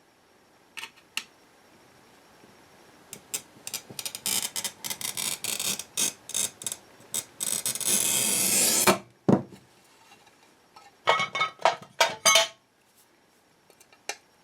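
A piece of glass being scored and handled on a bench: a run of quick scratchy strokes building to a long continuous scrape, a dull thud about nine seconds in, then several sharp ringing glass clinks.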